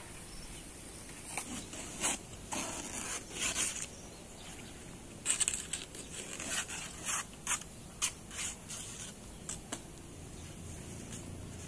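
Large banana leaves rustling and crackling as they are handled and trimmed with a machete, in irregular bursts and sharp snaps.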